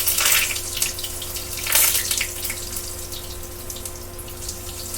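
Potato latkes sizzling and crackling in hot oil in a frying pan, flaring louder twice as they are pressed flat.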